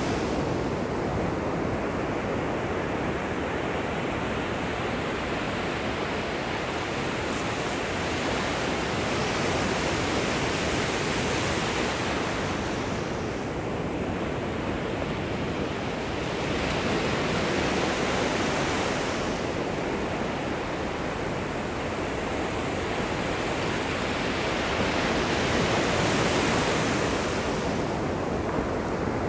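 Gentle ocean surf washing onto the shore: a continuous hiss of small waves breaking and running up the beach, swelling and easing every several seconds.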